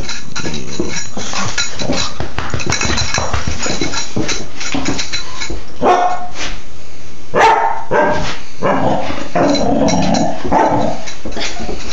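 Young Doberman pinscher puppy barking in play, with several barks in the second half. Scuffling and knocking close to the microphone come as she mouths and jumps at the hand holding the phone.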